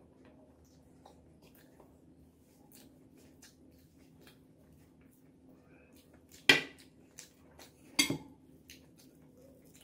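Faint chewing and mouth sounds of someone eating with their hands, then two sharp clinks on crockery about one and a half seconds apart, the second as a hand goes into a ceramic plate.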